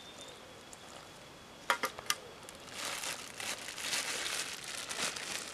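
A thin plastic bag of flour-based bread mix crinkling and rustling as it is handled and squeezed once water has been added, starting about three seconds in. Just before, a metal cup clinks twice as it is set down.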